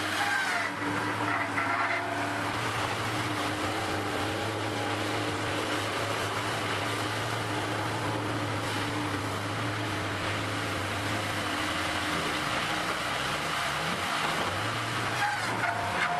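An engine running steadily, its pitch wavering a couple of seconds before the end.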